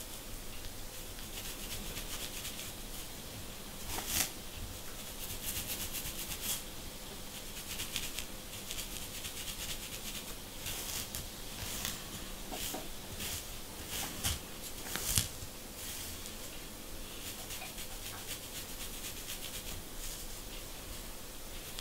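Fine-tooth plastic comb scratching over a dry, dandruff-flaked scalp through short coarse hair: a continuous run of quick, crisp scratches, with a few louder strokes as flakes are scraped loose.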